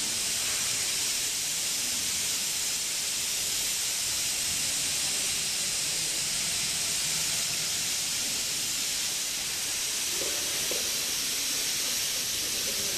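A steady, high hiss that goes on without a break, with no tone or rhythm in it.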